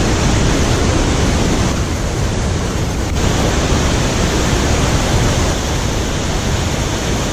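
Waterfall rushing: a loud, steady, unbroken wash of falling water.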